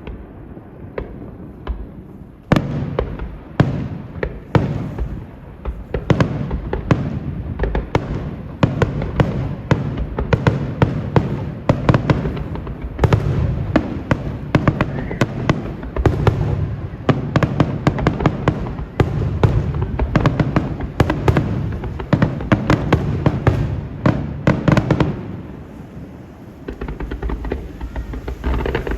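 Aerial fireworks display: a rapid barrage of bangs and crackles over a low rumble, thinning briefly near the end before more shells burst.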